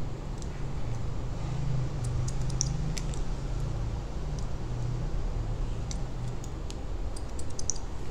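Hair-cutting scissors snipping through a section of wet hair in scattered light clicks, a few at a time, over a steady low hum.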